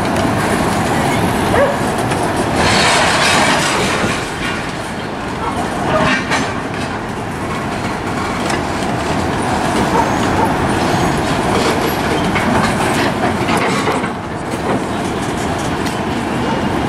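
CSX freight cars, loaded open-top hoppers and tank cars, rolling past on the rails: a steady rumble and clatter of wheels on track, louder for a stretch about three seconds in and again briefly about six seconds in.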